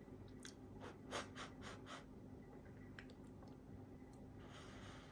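Faint mouth and spoon sounds of someone about to eat a spoonful of stew: a quick run of small clicks about a second in, then a short soft breath of air near the end.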